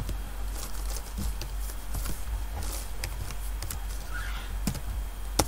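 Computer keyboard keys clicking at an irregular pace as a command is typed, with one sharper key press near the end.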